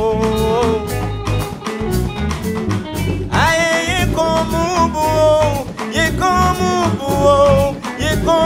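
Live Afrobeat band playing at full pace: electric guitars over drum kit and congas, with a singing voice that holds a note and then starts a new line of phrases about three seconds in.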